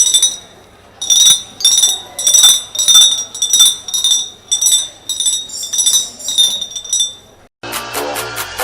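Glass bottles clinked together in a steady rhythm, about three bright ringing clinks a second: the bottle-tapping a street cold-drink and lemon-soda seller uses to call customers. Near the end the clinking stops and electronic music with a beat starts.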